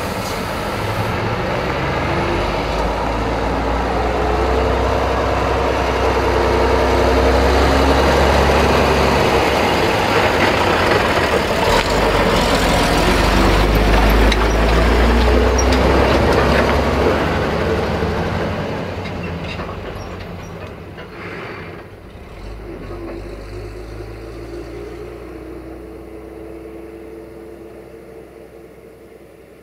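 Heavy tipper trucks driving past close by with their engines running. The sound is loudest through the middle, then fades over the last several seconds as a truck drives away.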